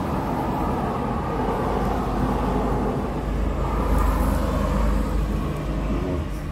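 Steady low outdoor rumble with no distinct events, growing louder about four seconds in.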